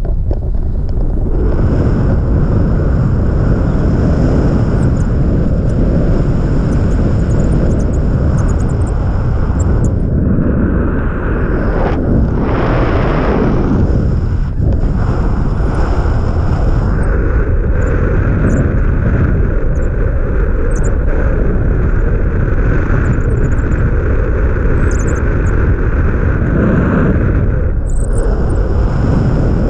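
Loud, steady wind rushing over an action camera's microphone as a tandem paraglider flies through the air.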